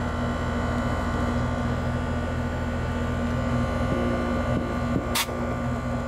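R-454B air conditioner condensing unit running with a steady hum from the compressor and condenser fan. A single sharp click comes about five seconds in.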